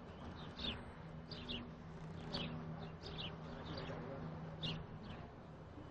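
Small birds chirping: short, high chirps that drop in pitch, repeated every half second to a second, over a faint low steady hum.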